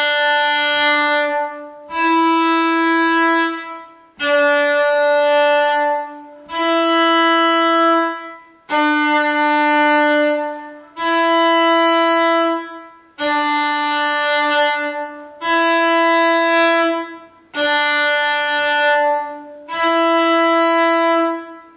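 Cello played with the bow: ten long notes of about two seconds each, alternating between D and E on the A string, a whole step apart. This is a shifting exercise, moving the hand between first and fourth position.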